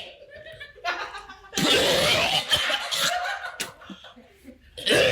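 People laughing in bouts: a short burst about a second in, a longer one soon after, and another near the end.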